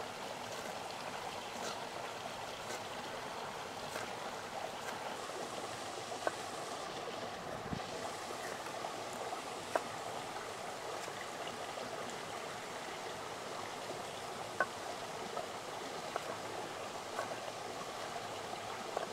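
Steady rushing of a rocky stream. A few light, irregular knife taps on a wooden cutting board as sweet pepper is sliced.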